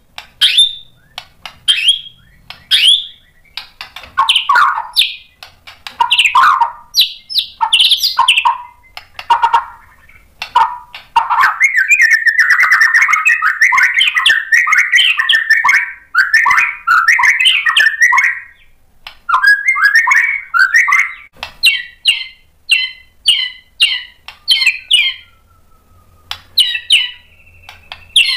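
White-rumped shama (murai batu) in full song: loud, sharp whistled phrases, then a long rapid chattering run in the middle. Near the end comes a string of short repeated high notes, about two a second.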